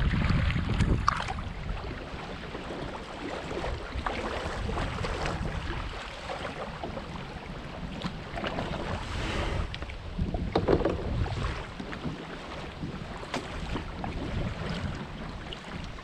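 Kayak paddle strokes splashing in choppy lake water, with wind rumbling on the microphone during the first second or so, then scattered splashes and knocks from the water and the kayak.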